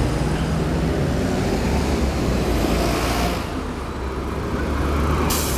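Heavy traffic on a many-lane city avenue: cars and city buses running past in a steady rumble, with one vehicle swelling louder and fading about three seconds in. A short hiss comes near the end.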